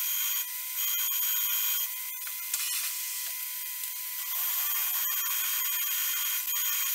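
Drill bit in a milling machine boring into steel, giving a steady high-pitched ringing whine with several tones over a hiss. The whine weakens for about two seconds in the middle, with a single click, then comes back.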